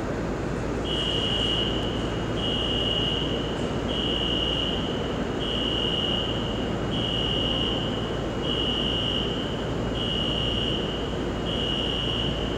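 New York City subway turnstile beeper sounding a repeating high-pitched electronic beep: eight tones of one pitch, each about a second long, about one every second and a half, starting about a second in, over steady station background noise.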